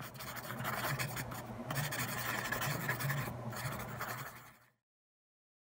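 Mechanical pencil scratching on paper in repeated strokes, with a low steady hum underneath; it fades out a little before the end.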